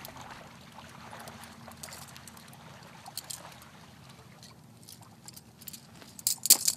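Scuffing and crunching of movement on stony ground: faint scattered scuffs, then a short cluster of loud, sharp crunches near the end.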